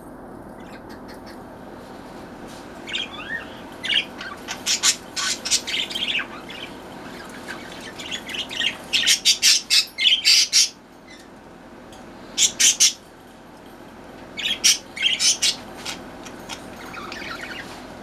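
Pet budgerigars in a cage chattering and squawking: bursts of rapid, sharp chirps and squawks come in several clusters with short pauses between them.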